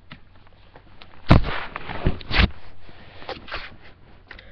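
Handling noise on a webcam microphone: a sharp bump about a second in, then a few short rustles.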